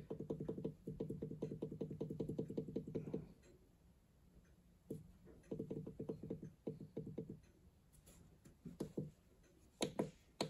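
Runs of rapid clicks from the buttons on a motor inverter's keypad, pressed quickly in succession while its acceleration-time setting is changed: a dense run for about three seconds, a pause, a second run, then a few single presses near the end.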